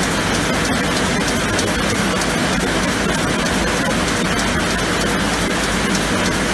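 Sleeve applicator and shrink tunnel running on a line of 500 ml beer cans: a steady, dense rushing noise with a rapid, irregular patter of faint clicks.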